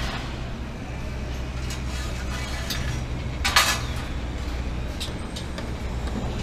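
Steady low hum of city traffic, with faint scattered clicks and one brief loud hiss about three and a half seconds in.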